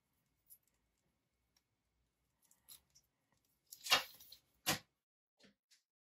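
Handling noise from a black USB charging cable being uncoiled and its plastic plugs fingered: scattered soft rustles and ticks, with a louder rustling clatter about four seconds in and a sharp click just after it.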